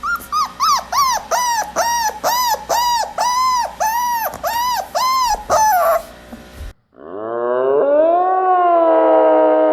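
Animal calls: about a dozen short, high yelping cries in quick succession, each rising and falling in pitch. After a brief break comes one long howl that rises and then holds steady.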